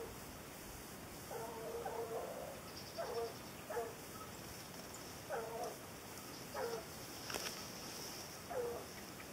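Hunting hounds baying on a wild boar chase: about six separate calls at irregular intervals, the second one longer. A single sharp click comes about seven seconds in.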